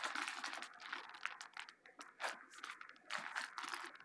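Clear plastic candy bag crinkling as it is handled and squeezed, a run of irregular crackles and sharp rustles.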